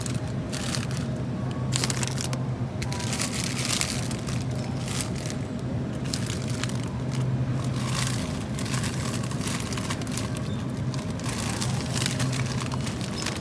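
Crinkling of plastic packaging as bags of frozen breaded chicken nuggets are handled, in many irregular short crackles over a steady low hum.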